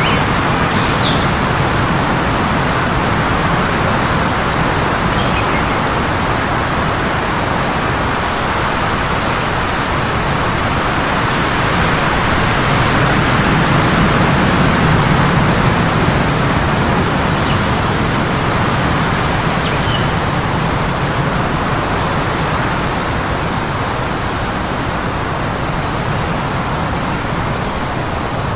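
Heavy blizzard wind blowing steadily, a little louder about halfway through, with brief, faint bird chirps now and then.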